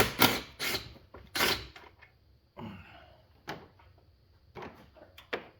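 Hand tools knocking and clinking against the car's engine-bay parts while the intercooler bolts are worked loose: several sharp knocks in the first second and a half, a short scrape near the middle, then a few lighter ticks.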